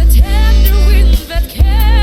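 Bass-boosted pop song with a sung vocal over heavy, steady bass, the bass dropping out briefly just past the middle.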